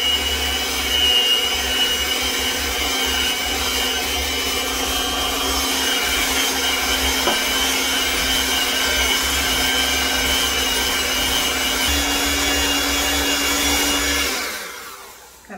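Electric hand mixer running steadily with a whine and hum, beating eggs into creamed butter and sugar. Its pitch steps up slightly about twelve seconds in, and it winds down and stops near the end.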